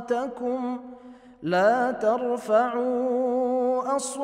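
A man reciting the Quran in melodic tajweed style, drawing out long, wavering held notes. About a second in there is a short breath pause, then his voice glides upward into a new long held note.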